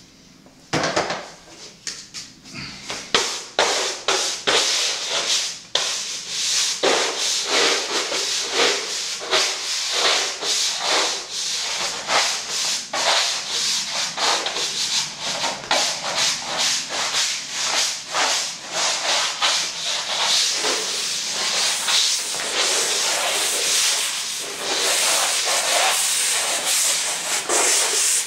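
Broom bristles brushing paint across a canvas in quick, repeated back-and-forth strokes. A few separate strokes come about a second in, then they run on almost without pause.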